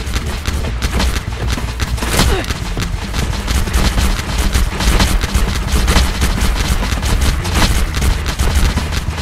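A rapid, dense barrage of pops and thuds from a stream of balls fired out of wall launchers and striking around and onto a figure, over a steady low rumble.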